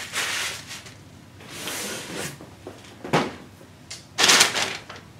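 Handling of toy packaging: rustling of packing material and a boxed figure being moved, with a sharp knock about three seconds in and a louder rustle or scrape near the end.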